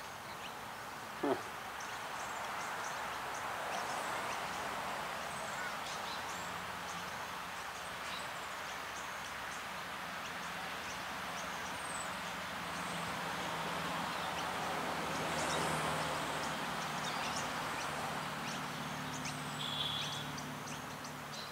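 Lakeside outdoor ambience: a steady background rush with scattered faint bird chirps, a short low call about a second in, and a low steady hum that comes in about six seconds in and grows stronger near the end.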